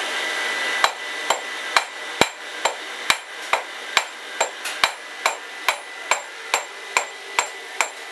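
Blacksmith's hand hammer striking hot iron on an anvil. The blows start about a second in and keep a steady pace of a little over two a second, each one a sharp ringing strike.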